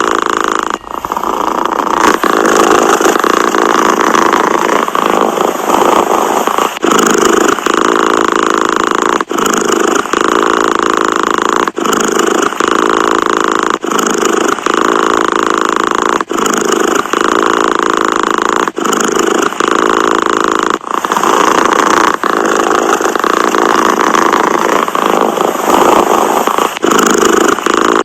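Domestic cat purring close up, a steady rumble that breaks briefly about every two to two and a half seconds as the cat breathes in and out.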